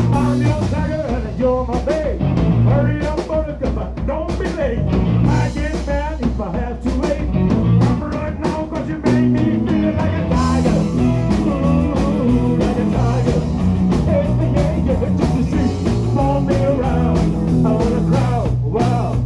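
Live rock band playing: electric bass, electric guitar and drum kit with a singer, on a steady beat, recorded close to the stage on a phone's microphone.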